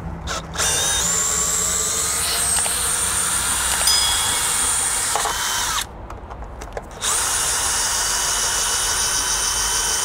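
Cordless drill-driver running, backing screws out of a wooden concrete form. It gives a short blip, then runs steadily for about five seconds, stops for about a second, and runs again for about three seconds.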